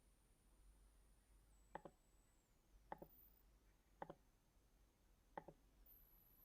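Four faint computer-mouse clicks about a second apart, each a quick press-and-release pair, over near-silent room tone.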